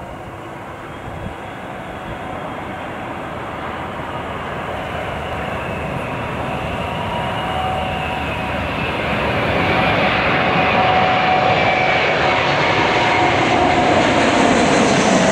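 Airbus A380's four jet engines on landing approach: a steady jet rumble that grows louder throughout as the airliner comes in low overhead, with a faint engine whine over it.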